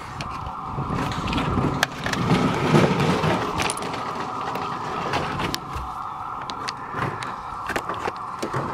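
Camera handling noise as it is pushed around a jet ski's engine compartment: scattered clicks, knocks and rubbing with a low rumble, over a steady hum.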